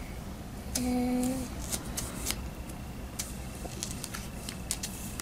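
Light clicks and paper rustles of fingers tapping and sliding on a laminated sheet of picture cards on a tabletop. About a second in, a young child's voice draws out a single word while sounding out a sentence.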